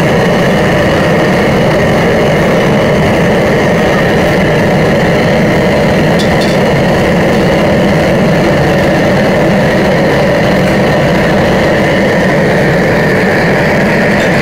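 Steady, loud roar of commercial gas wok burners in a Chinese restaurant kitchen, with a few light clicks about six seconds in.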